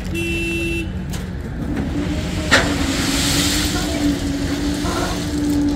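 Rail track-laying crane running with a steady engine drone while it carries a track panel, with a short high squeal right at the start and a sharp metallic clank about two and a half seconds in.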